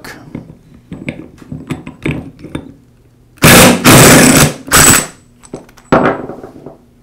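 DeWalt cordless impact driver hammering in two loud bursts, about a second and a half in all, spinning the chuck off a router's armature shaft, with a thin high motor whine over the rattle. Light clicks of the socket being fitted come before it, and a single knock near the end.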